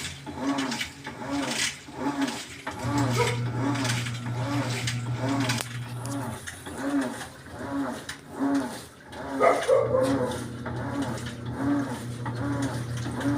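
Whirlpool 8MWTW224WJM washing machine agitating its load: a rhythmic swish roughly every half second as the drum turns one way and then the other, with the motor's low hum coming on in stretches. A short, louder, higher-pitched sound cuts in about nine and a half seconds in.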